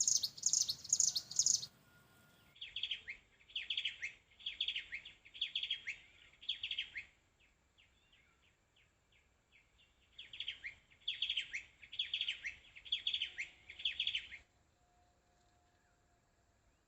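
Ciblek gunung (a small prinia) singing: runs of quick, repeated chirping phrases with a pause in the middle, stopping about 14 seconds in.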